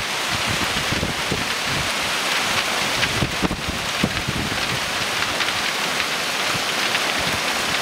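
Heavy hailstorm: hailstones and rain pelting the street, parked cars and trees, a dense steady hiss peppered with many small sharp impacts.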